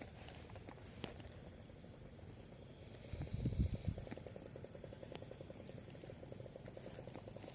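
Faint outdoor ambience with a steady high insect drone. About three seconds in there is a brief low rumble, and then a fast, even ticking of roughly ten ticks a second.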